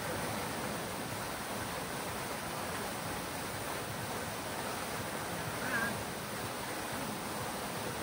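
Steady rush of water from a fountain, falling and splashing without a break. A brief high call cuts in once, a little past the middle.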